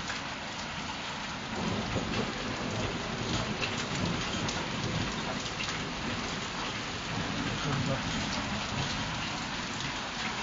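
Falling snow and small ice pellets pattering steadily on the ground and roofs, with many tiny ticks. A low rumble of thunder swells about two seconds in and again near eight seconds.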